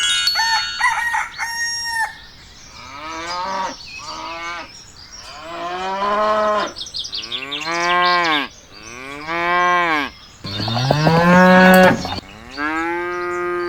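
Farm animal calls: a high crowing call near the start, then several long moo-like calls, each rising and then falling in pitch.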